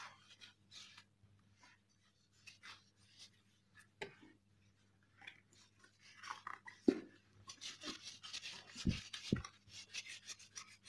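Cloth rubbing cutter polish over a motorcycle helmet's plastic shell in short, faint strokes that grow busier in the second half. There are a few dull knocks along the way.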